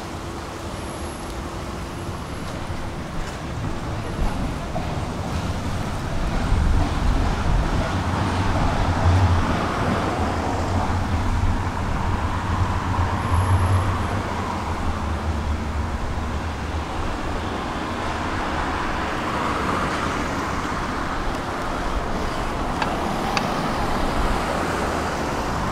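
Traffic noise with a heavy vehicle's low rumble that swells for about ten seconds in the middle and then eases off.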